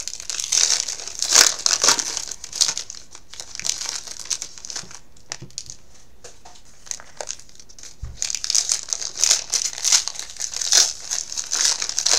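Trading card pack wrappers being torn open and crinkled in the hands, in irregular crackly bursts. The crinkling eases off for a few seconds in the middle, then picks up again.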